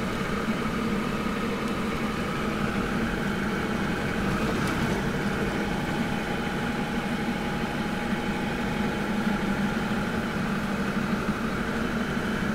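Toyota Land Cruiser 60 Series driving along a sandy dirt track: steady engine and tyre noise heard from inside the cabin.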